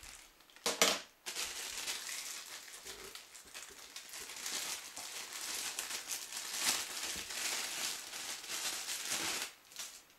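Thin clear plastic bag crinkling and rustling in the hands as a new plastic gear is unwrapped from it, with a short louder rustle about a second in. The crinkling stops near the end.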